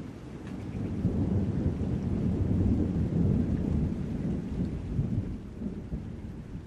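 A low rumbling noise with no clear pitch. It swells about a second in and dies down near the end.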